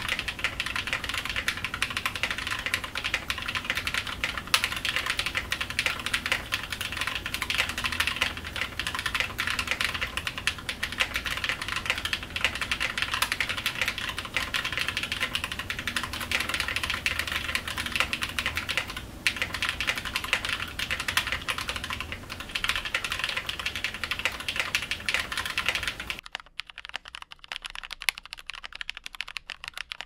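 Steady, fast typing on a custom KBD75 v2 mechanical keyboard: plateless build, lubed Invyr Holy Panda tactile switches and GMK keycaps, giving a dense run of key clacks. Near the end the recording becomes cleaner, with much less background hiss, as the typing continues.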